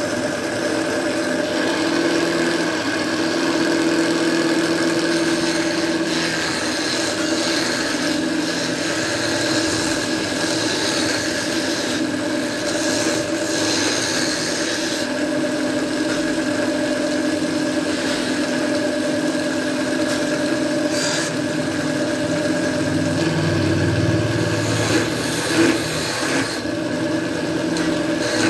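Small belt-driven wood lathe running with a steady hum. A hand chisel scrapes against the spinning wood, with the scraping growing louder in stretches.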